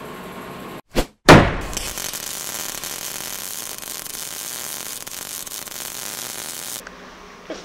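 Outro logo sound effect: a short hit, then a loud impact that dies away into a steady hiss lasting about five seconds, which cuts off suddenly near the end.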